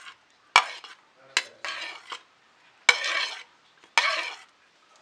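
A metal spoon clinking and scraping against metal cookware while scooping fried onion and garlic into a mixer grinder jar. There are a few sharp clinks, then three short scrapes.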